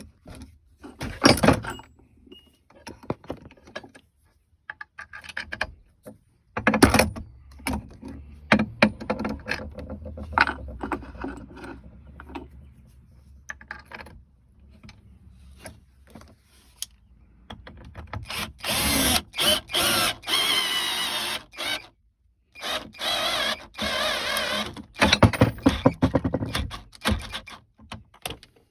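Harbor Freight Warrior cordless drill run in several bursts of about two seconds each in the second half, its motor pitch wavering under load. A couple of sharp knocks and handling clatter come earlier.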